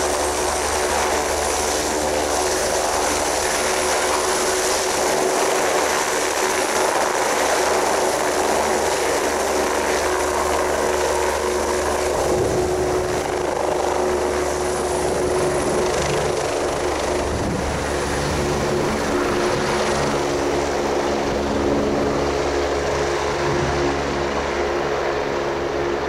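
Kawasaki BK117C-2 helicopter running at lift-off power: twin turboshaft engines with a steady whine over the rotor noise as it lifts from the pad and climbs away. The sound grows duller near the end as the helicopter draws off.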